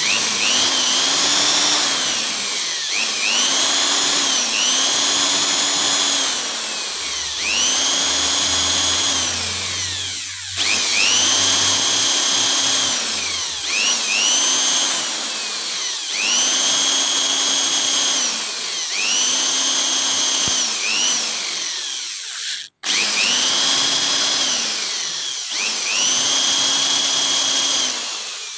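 Electric drill motor whining as a hand-held wooden block is pushed onto its spinning bit to bore a round hole. The pitch sags each time the wood is pressed on and climbs back when it is eased off, roughly every two seconds. The sound breaks off for an instant about three quarters of the way through.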